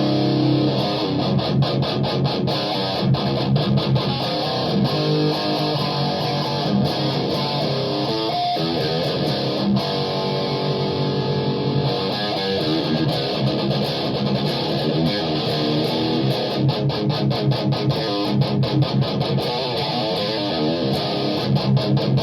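Electric guitar through a Mesa Boogie amplifier playing heavy riffs, with runs of quick repeated picked notes, most of all near the end.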